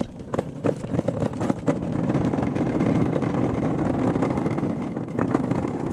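A vehicle on the move: steady engine and road noise that builds over the first couple of seconds and then holds.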